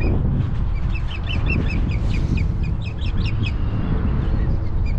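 Ospreys calling: quick series of short, high whistled chirps that thin out near the end, over heavy wind rumble on the microphone.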